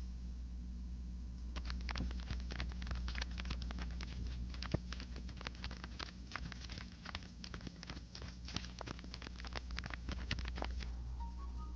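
Paper being handled and crinkled: a dense, irregular run of crisp crackles and rustles that starts about a second and a half in and stops shortly before the end, over a steady low hum.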